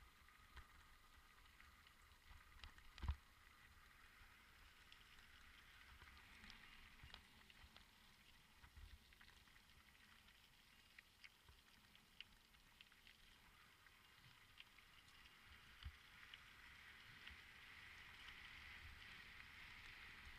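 Faint rolling noise of a bicycle descending a rough trail, with scattered small clicks and rattles, and a heavy knock from a bump about three seconds in and a smaller one near the end; the rolling noise grows a little louder toward the end.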